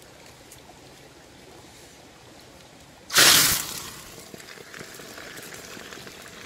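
A smoking pot over a wood fire flares up: about three seconds in a sudden loud rushing sizzle breaks out over a quiet stream, then fades over about a second into a steady hiss.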